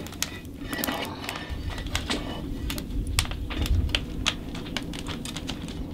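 Wood fire in a raku kiln crackling and popping in quick, irregular clicks over a low rumble of the burning fire.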